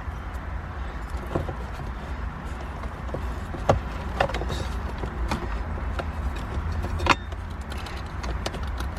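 Tools and small metal parts being handled: scattered clinks and knocks, the sharpest about four and seven seconds in, over a steady low rumble.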